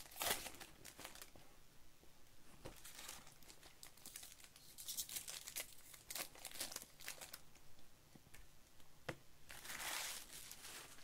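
Baseball card pack wrapper being torn open and crinkled by hand, in several short bursts of rustling, with a single click about 9 s in.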